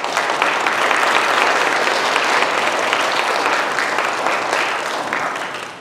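Congregation applauding: a steady clapping that dies away near the end.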